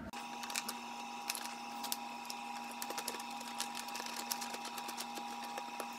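Many small sharp clicks and handling noises as a 1/4 inch by 3/4 inch bolt is fitted by hand through a plastic bumper tab, over a steady electrical hum. Both start and stop abruptly.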